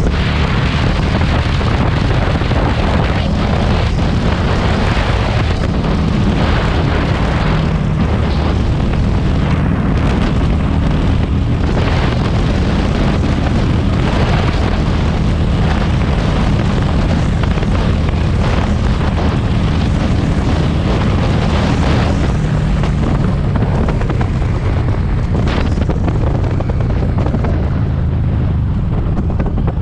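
Heavy wind buffeting on a GoPro's built-in microphone at riding speed, with the Harley-Davidson Street 500's V-twin exhaust running underneath. The wind eases a little near the end.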